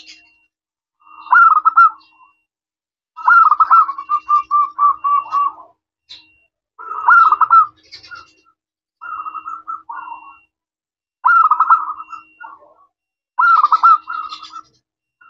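Zebra dove (perkutut) singing: six phrases of quick, trilling coos, one about every two seconds, the second drawn out into a long string of rapid notes.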